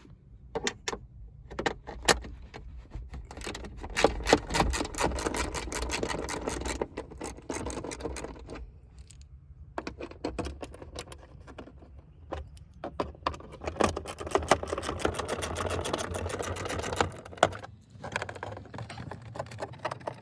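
Small hand ratchet with a 10 mm socket clicking rapidly as bolts are backed out, in two long runs of ratcheting with a few separate clicks and knocks between them.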